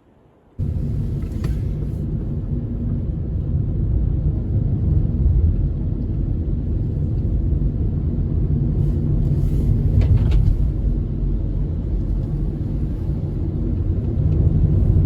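Strong wind buffeting the microphone as a heavy, steady low rumble that starts suddenly about half a second in, with a couple of faint sharp clicks about a second and a half and ten seconds in.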